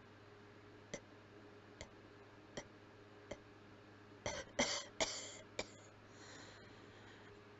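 Four short, muffled closed-mouth coughs in quick succession about four seconds in, followed by a brief breathy hiss. Faint regular clicks, about one every 0.8 seconds, tick in the background.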